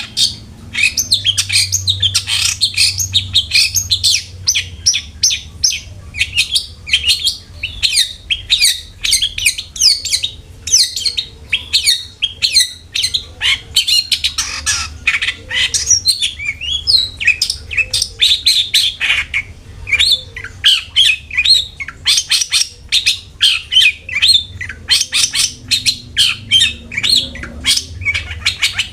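Long-tailed shrike (cendet) singing a fast, unbroken chatter of short, sharp notes, over a low steady hum. This is a lure song meant to prompt other cendet to sing.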